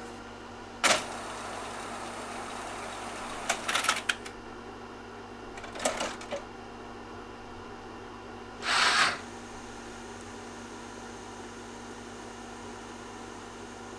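A bank of Tandberg IS10 two-motor student cassette decks rewinding their tapes to the start. The deck mechanisms clack about a second in, click in small clusters near four and six seconds, and give a short louder burst of mechanism noise about nine seconds in, over a steady hum.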